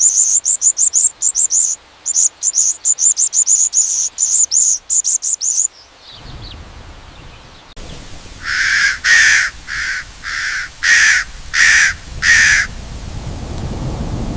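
Fast, very high-pitched bird chirping repeated for about six seconds, then a crow cawing seven times.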